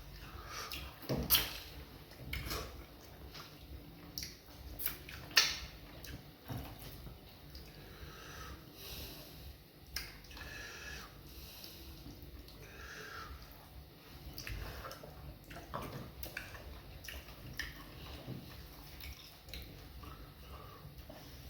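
Wet eating sounds of fufu and vegetable soup eaten by hand: irregular chewing, lip smacks and slurps, with scattered sharp clicks, the loudest about a second in and about five seconds in.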